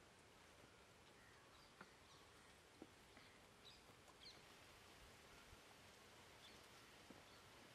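Near silence: a faint steady hiss with a few soft ticks and a couple of faint high chirps.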